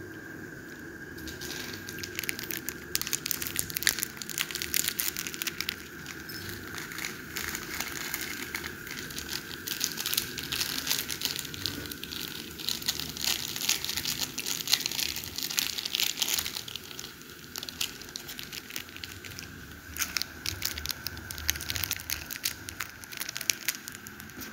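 Plastic instant-noodle seasoning sachets crinkling as they are handled and squeezed out by hand, a dense crackly rustle that starts about a second in and goes on in uneven bursts.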